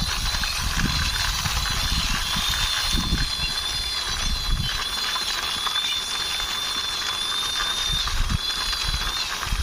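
Toy army jeep pushed along by hand, its wheels rolling with a fast, continuous clicking rattle and low rumbles. A faint steady high tone sits behind it.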